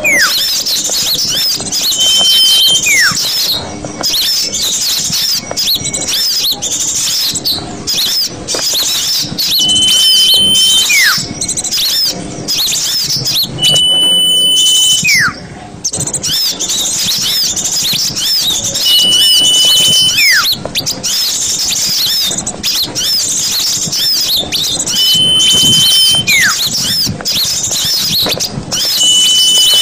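Bird-lure recording of small birds: dense high-pitched twittering and chirping throughout, with a loud whistle every few seconds. Each whistle is a short held note followed by a note sliding down in pitch.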